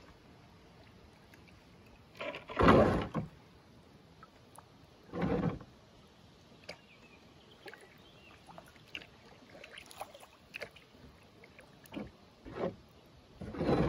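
Kayak paddle strokes in a shallow river: a few short splashing swishes, the loudest about two and a half seconds in and more near the end, with small drips and ticks between.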